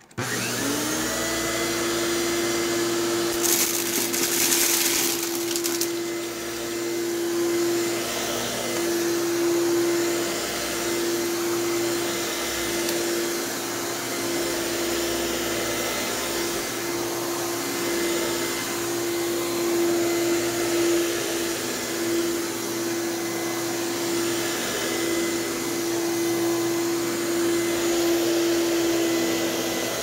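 Nilfisk Advance PowerOne 12 upright vacuum switched on, its motor spinning up within a second to a steady whine and then running as it is pushed over carpet and rug. About three and a half seconds in comes a two-second burst of hissing as a pile of debris is sucked up.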